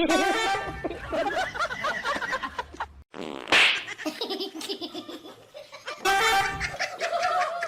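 Giggling laughter in wavering pitched runs, broken by abrupt cuts about three and six seconds in, with a short hissy burst just after the first cut.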